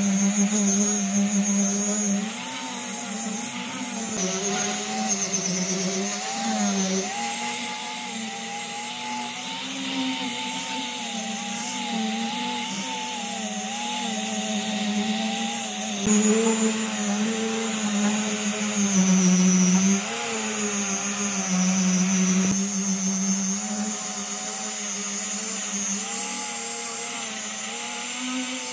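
Electric power tool working wood, its motor running steadily with the pitch sagging and recovering as the load changes.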